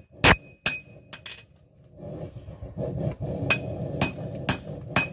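Hand hammer striking hot steel on an anvil, each blow ringing bright and metallic: drawing out a knife's stick tang on the edge of the anvil. The blows pause for about a second and a half, then resume about two a second over a low steady rushing noise.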